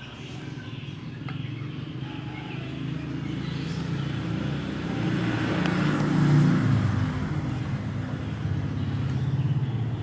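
A motor vehicle's engine running as it passes by, building up gradually and loudest about six seconds in, then easing off.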